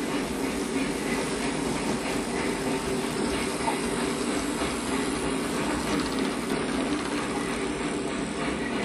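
HO-scale model freight train rolling steadily along the track, its long string of cars making a continuous rolling rumble with faint, regular clicking.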